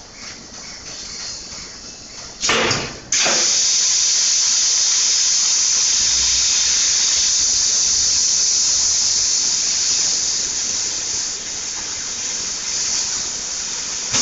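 Cashew nut peeling machine starting up: a short loud burst, then about three seconds in a loud, steady high hiss of rushing air cuts in abruptly and keeps going as the machine peels the nuts.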